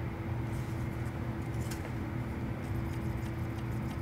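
Stepper motor of an I-Extruder handheld solder paste dispenser clicking as it drives paste out, in faint rapid clicks about four or five a second from a little past halfway, over a steady low hum.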